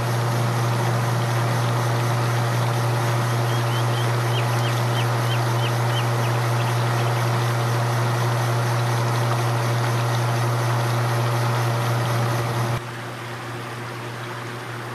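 Lake fountain's water jet splashing as a steady rushing hiss over a steady low hum, with a bird's quick run of short chirps a few seconds in. Near the end the sound cuts suddenly to a quieter, steady background.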